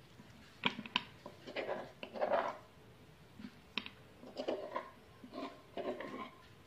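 Metal spoon clinking and scraping against a glass bowl as pounded shrimp paste is scooped and shaped. There are sharp clinks about a second in and again near the middle, among softer scraping and handling sounds.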